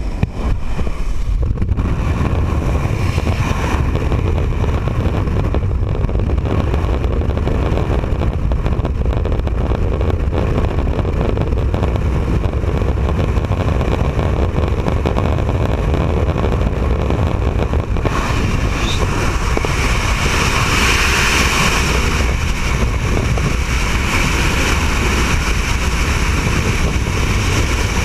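Steady, loud rush of wind and aircraft engine noise at an open jump-plane door, heavy in the low end. About 18 seconds in it turns hissier and brighter as the jumpers leave the plane: freefall wind buffeting the microphone.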